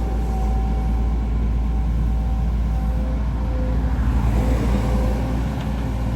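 Heavy diesel machinery running steadily: a Volvo EC210D excavator working, with a faint whine from the machine that drops in pitch about halfway through.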